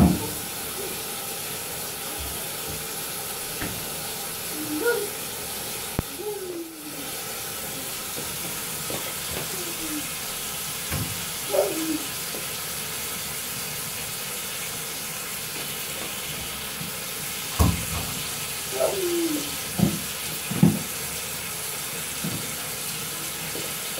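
Bathtub filling from the tap: a steady rush of running water. A toddler's short babbling calls sound over it several times.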